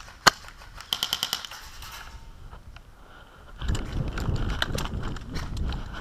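Airsoft gun shots: a single shot just after the start, then a quick automatic burst of about half a dozen shots around a second in. From about three and a half seconds a louder low rumbling noise sets in, with scattered clicks.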